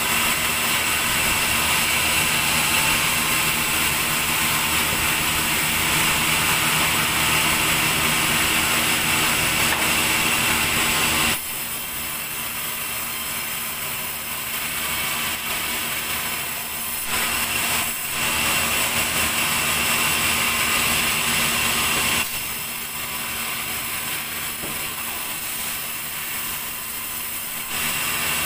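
Sawmill's large vertical band saw running and sawing through a big log: a steady, loud sawing noise with a high whine. It drops in level about eleven seconds in and again about twenty-two seconds in, rising again between and near the end.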